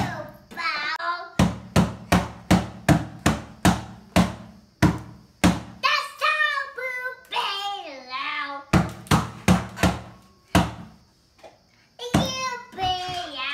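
A small child's hands slapping a plastic compost bin like a drum, a steady beat of about three strikes a second in two runs. Between the runs the child sings in a high, gliding voice.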